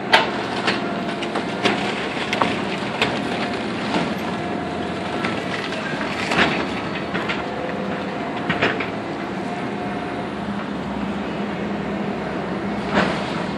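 Caterpillar 315C L hydraulic excavator's diesel engine running steadily while its demolition claw tears into a wooden building, with repeated cracks and crashes of splintering wood and falling debris. The sharpest crack comes right at the start, with others about six and nine seconds in and near the end.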